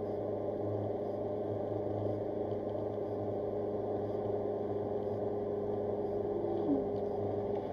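Steady hum of a car driving at highway speed, its engine and road noise heard inside the cabin through the dashcam's microphone.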